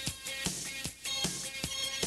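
Background music with a steady drum beat, about two and a half hits a second, over held synthesizer-like tones.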